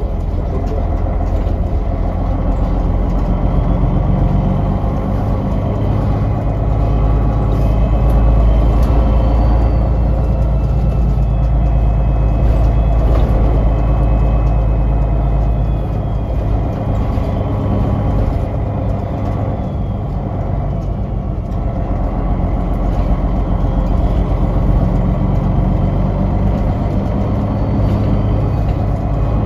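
MAN NL263 Lion's City city bus running along, heard from inside the passenger cabin: its MAN D2866 inline-six diesel and Voith automatic drivetrain give a steady low drone that swells a little now and then, with faint rising whines.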